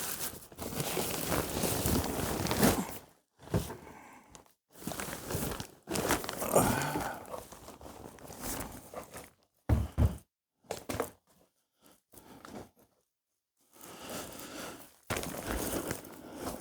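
Things being rummaged through and handled: crinkling and rustling in stretches of a few seconds, with footsteps and a couple of sharp thunks about ten seconds in.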